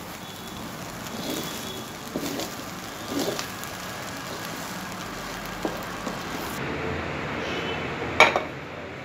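Cooking sounds from a wok of fried rice: light scraping and small knocks of a utensil against the pan over a steady background hiss, with one sharp, loud clank about eight seconds in.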